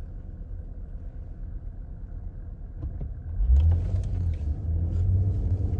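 Car interior noise: the low rumble of the car driving, heard inside the cabin, growing louder about three and a half seconds in.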